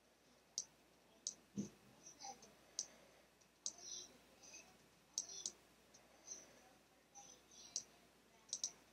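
Faint, irregular clicking of a computer pointer button while shapes are copied and placed in a drawing app, about a dozen clicks spread unevenly, with one soft low thump about a second and a half in.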